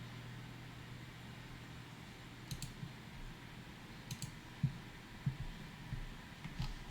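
Faint computer clicks at a desk, a few of them in quick pairs, over a low steady room hum with a handful of soft low knocks.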